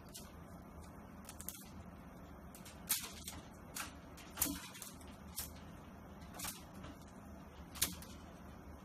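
A kitten's paws and claws on a sisal-rope cat tree as it bats and climbs after a dangling toy: about eight short scratches and taps, spaced irregularly, over a low steady hum.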